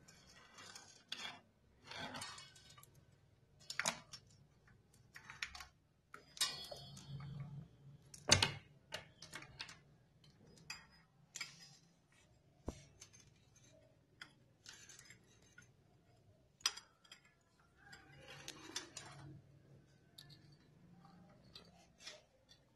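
Motorcycle drive chain and small metal fittings handled by hand: scattered light metallic clicks and clinks at irregular intervals, the sharpest about eight seconds in.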